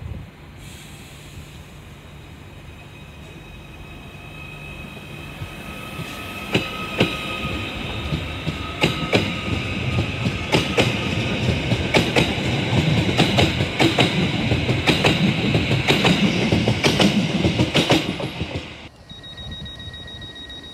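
Merseyrail Class 777 electric multiple unit running past close by, growing louder from about six seconds in, with a whine and a rapid run of wheel clicks over the rail joints. Near the end it cuts off abruptly to a steady high tone.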